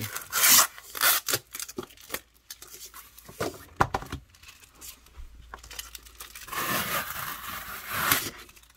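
Printed packing tape being ripped off a corrugated cardboard record mailer and crumpled by hand, in several short rips and crinkles with a longer stretch of tearing about two-thirds through. A few sharp knocks come from the cardboard being handled.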